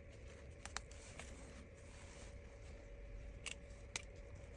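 Quiet room tone with a low steady hum and a few faint, sharp clicks from a thin plastic card being worked between a smartphone's frame and its display to pry the screen loose.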